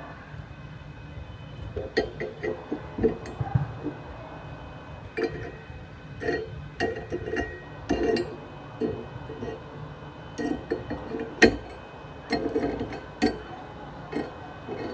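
Test weld with a home-converted small inverter welder: irregular crackling bursts and sharp metallic clicks from the arc and the work, coming in uneven clusters with short gaps.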